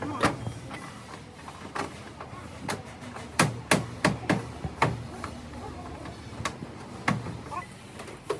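Irregular hammer blows, about nine sharp knocks, most of them bunched together in the middle.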